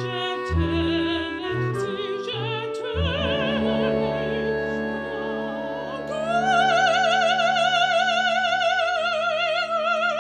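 Opera music: a singer with wide vibrato over held accompaniment, rising about six seconds in to a long high note that is held on.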